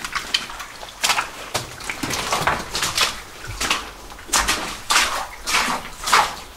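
Footsteps on the rocky, debris-strewn floor of a mine tunnel, about two steps a second.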